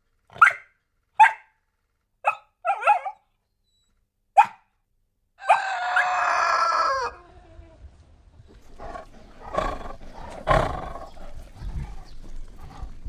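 A dog barking in about five short, separate barks, followed by a longer drawn-out pitched call lasting about a second and a half, then a rougher, noisier stretch of animal sounds.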